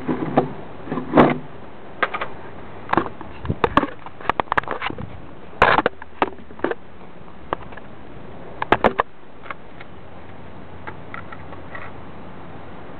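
An alarm clock being beaten with a baseball bat: irregular sharp knocks and clatters, the hardest about a second in, near six seconds and near nine seconds, then only a few faint ticks.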